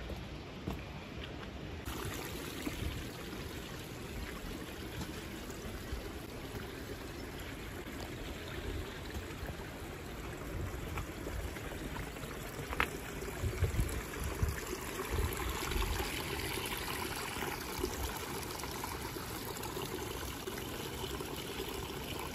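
Running water of a mountain stream flowing steadily, with a few low bumps about two-thirds of the way through.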